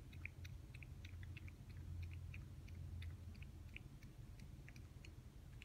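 A cat eating wet food from a ceramic bowl: faint, irregular little clicks of chewing, a few a second, over a low steady hum.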